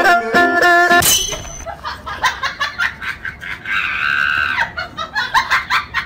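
Plucked-string background music stops about a second in, and a person laughs in short, uneven bursts, rising to a high-pitched squeal of laughter a little past the middle.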